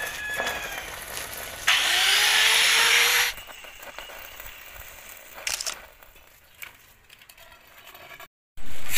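Stick (arc) welding of a steel gate hinge: a loud hiss of the welding arc lasting about a second and a half, then quieter work sounds with a few scattered clicks.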